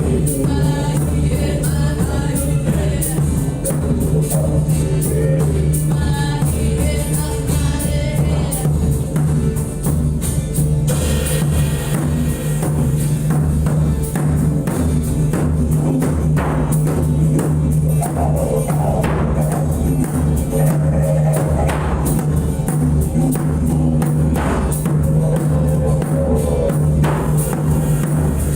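Music: singing over a fast, steady drum and tambourine beat, with a low tone held throughout.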